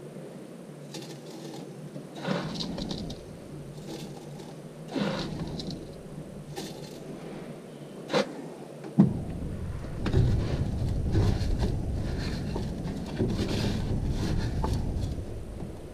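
Spoonfuls of coarse salt tipped onto clamworms in a stainless mesh strainer, several short sharp clicks, then from about nine seconds in a continuous noise of fingers mixing the salt through the worms.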